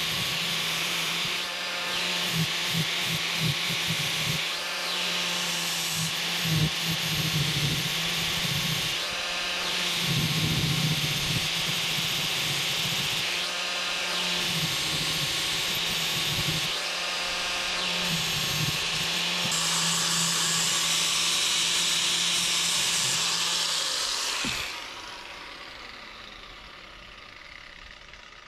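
Corded angle grinder with an 80-grit sanding disc grinding the steel head of a hatchet, a steady motor hum under a harsh high grinding hiss that shifts every few seconds as the disc is worked over the metal. About 24 seconds in it is switched off and winds down in falling pitch.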